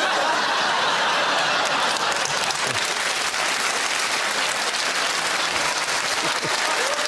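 Studio audience applauding, a steady spread of many hands clapping.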